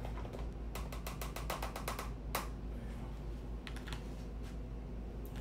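A quick run of light plastic clicks and clatters, then a few single clicks, from clear plastic meal-prep containers being handled and set on a kitchen scale.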